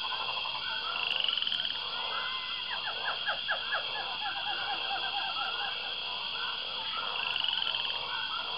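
A dense natural chorus of animal calls: many short, rapidly repeated calls over a steady high buzz. It cuts off abruptly at the end.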